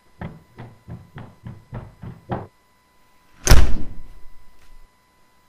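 Hurried footsteps running up stairs, about seven heavy steps in quick succession, then a door slamming shut hard about three and a half seconds in.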